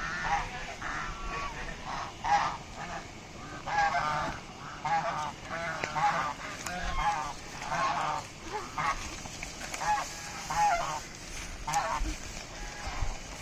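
Geese honking, a rapid string of short, nasal calls one after another.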